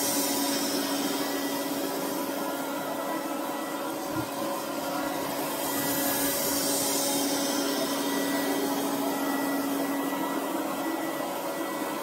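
Robot vacuum cleaner running: a steady motor hum under the hiss of its suction, the hiss swelling around the middle as it passes close. One light knock about four seconds in.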